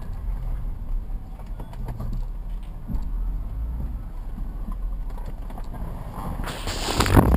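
Chevrolet Omega's 3.8-litre V6 engine running steadily at low speed, heard from inside the cabin as a low rumble. A short, loud noise comes near the end.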